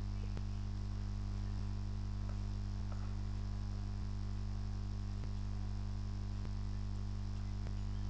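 Steady low electrical mains hum, with faint ticks about every second and a quarter.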